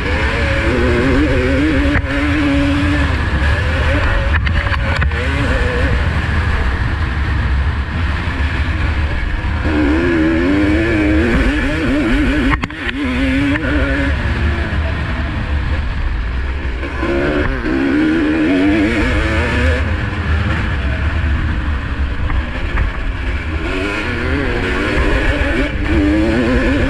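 Single-cylinder two-stroke motocross engine of a 1985 Honda CR250R racing, its pitch rising and falling again and again as the throttle is worked, over a heavy low rumble.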